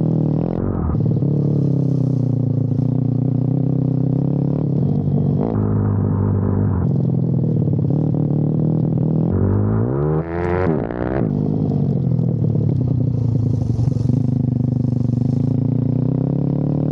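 Pit bike's single-cylinder four-stroke engine running at a steady speed, with one quick rev up and back down about ten seconds in.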